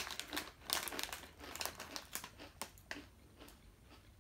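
A small plastic snack packet crinkling as it is handled and turned over in the hands. There are dense, irregular crackles for about three seconds, which then die down.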